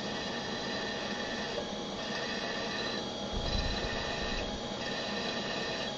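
Milling machine running steadily with an even hum, with a soft swish repeating about every second and a half and a brief low rumble a little past the middle.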